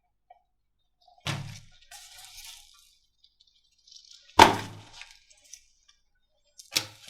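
Slime being handled, giving three sharp crackling pops: one about a second in, a louder one about four seconds in, and one near the end.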